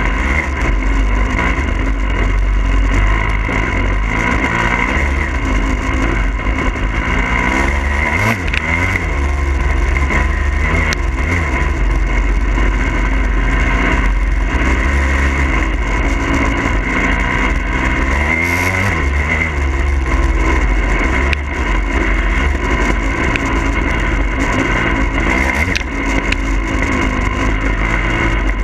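2022 Husqvarna TE300i two-stroke fuel-injected dirt bike engine running under riding load, the revs rising and falling again and again as it is ridden, heard close up from a camera mounted on the bike. A few sharp knocks come through along the way.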